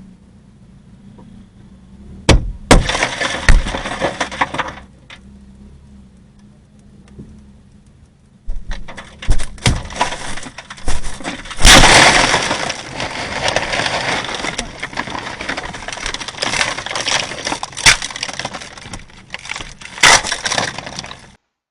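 Loud crashing and smashing in two spells: a few hard impacts with a rattling clatter about two seconds in, then a long run of continuous smashing and crashing, full of sharp hits, from about eight seconds in until just before the end.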